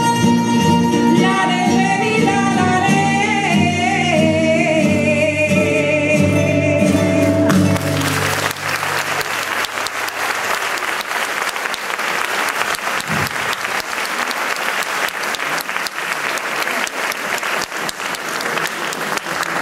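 Valencian folk music played by a string band of guitars and lutes, with a sung line that steps down and holds its last note as the piece ends. About eight seconds in, the audience breaks into applause that carries on steadily.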